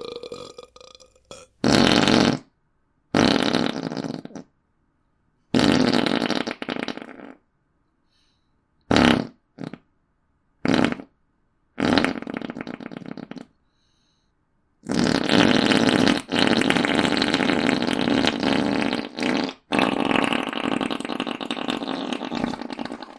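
A series of farts, some short and some drawn out over a second or two, with gaps between them, ending in a long, sustained fart lasting several seconds with one brief break.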